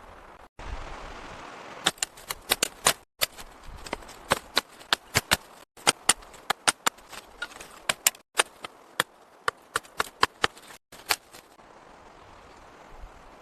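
A rapid, irregular series of sharp knocks or strikes, several a second, cut off abruptly a few times, with a brief rushing hiss before them.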